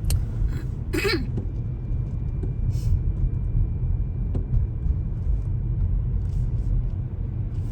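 Steady low rumble of a car driving, heard from inside the cabin, with a few brief knocks or rustles in the first few seconds.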